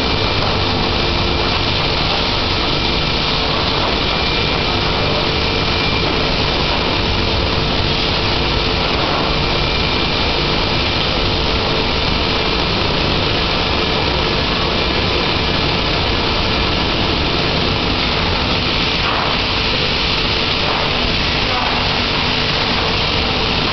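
Formech TF1700 vacuum forming machine running: a steady, even machine hum with a constant mid-pitched tone.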